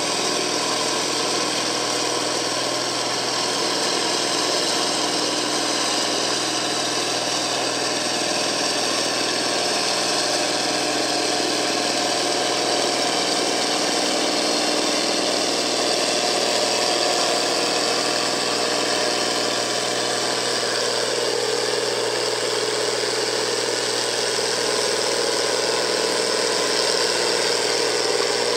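John Deere farm tractor's engine running steadily and hard while pulling a weight-transfer sled, its continuous sound shifting slightly about two-thirds of the way through.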